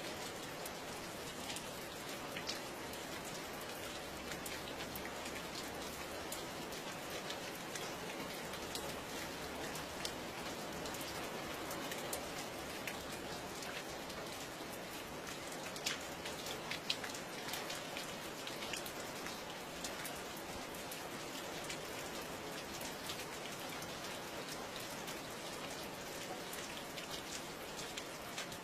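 Steady rain falling, with many individual drops ticking sharply on a surface and a couple of louder drop hits in the middle.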